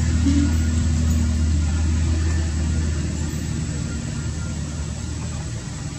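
Steady low hum of an idling motor vehicle engine, easing off about halfway through.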